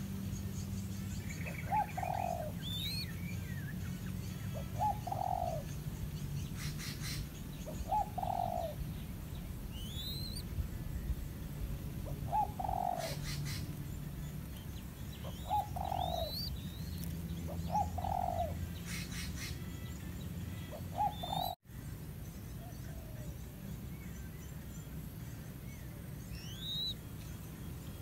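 A dove cooing, one short low call every two to four seconds, fainter in the last few seconds. Small birds' thin rising chirps sound above it, with three brief high buzzes about six seconds apart.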